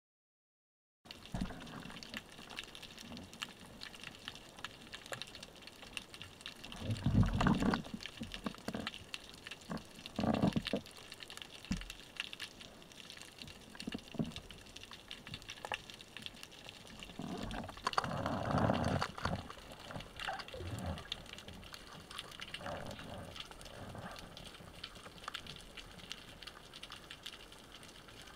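Underwater sound picked up by a camera on a speargun: after a second of silence, a steady hiss dotted with faint clicks, with two louder bursts of rushing, churning water about a quarter of the way in and again just past halfway.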